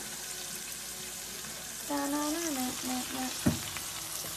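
Rice sizzling in a frying pan on the stove as red kidney beans are tipped in. A short hummed note comes about halfway through, and a single knock follows just after.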